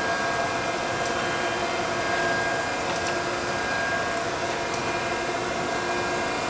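Okamoto 1224 surface grinder running steadily, a constant whirring hum with a few steady tones, while its table traverses at its fastest speed; faint ticks come now and then.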